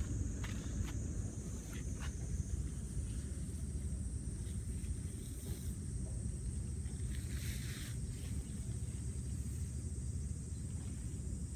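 Footsteps on sandy ground in the first two seconds, then a brief rustle of nylon fabric about seven seconds in as a tent rainfly is shaken out. Under these runs a steady low rumble and a constant high drone.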